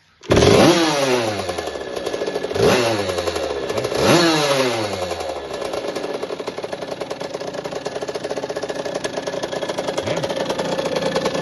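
Puch Cobra M-82 TT two-stroke motorcycle engine catching suddenly about a third of a second in. It is blipped three times in the first few seconds, the revs falling away after each, then settles into a steady idle.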